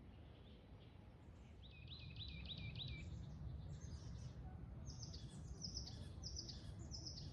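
Birds calling: a quick run of about six looping chirps, then from a few seconds in a string of short, high, down-slurred chirps repeating two or three times a second, over a faint low background rumble.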